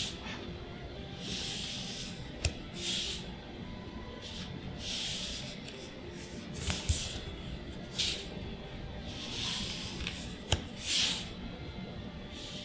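Magic: The Gathering trading cards being flipped through one at a time, each card sliding off the stack with a soft swish about every second and a half, and a few sharp clicks of card edges in between.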